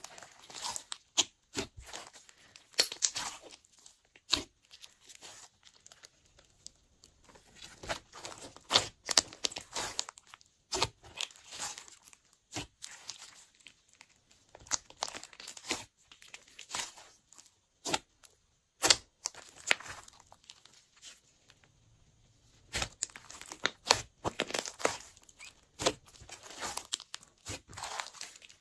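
Glossy slime being squished, stretched and folded by hand: a quick, irregular run of sticky clicks and pops, with short pauses about six and twenty-two seconds in.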